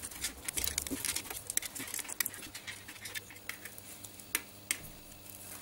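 Black plastic spiral cable wrap being twisted by hand around a servo extension cable and over its connector: a run of small, irregular plastic clicks and rustles.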